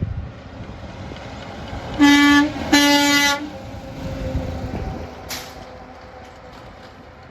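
Truck air horn sounding two blasts, a short one and then a slightly longer one, both on one steady pitch, over the low rumble of passing traffic.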